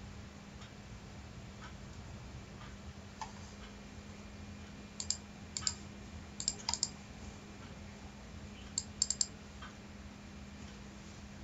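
Computer mouse clicking, with single clicks and quick double-clicks in small clusters from about five to nine seconds in. A steady low hum runs under them.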